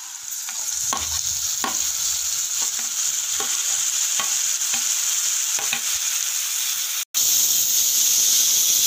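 Chopped tomatoes sizzling in hot oil in a frying pan with fried onions, the sizzle swelling as they go in. A spoon scrapes and taps against the pan in a regular rhythm as they are stirred. The sound cuts out for an instant about seven seconds in.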